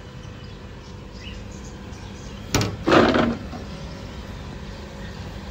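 A sharp click a little over two and a half seconds in, followed at once by a short knock-and-rustle, over a steady background noise.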